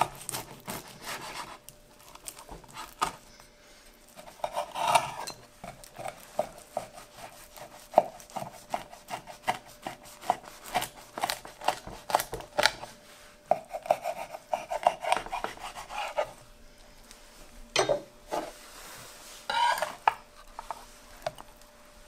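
Knife cutting through the crisp, well-baked crust of a spiral cheese pie (rrethenik) on a wooden board: a run of crunching crackles, with a few longer scrapes of metal against the wooden board.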